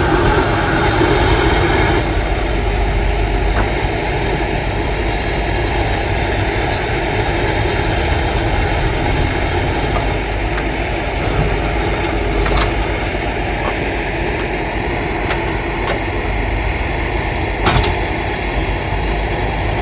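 Escorts backhoe loader's diesel engine running steadily, working harder for the first couple of seconds, with a few sharp knocks later on.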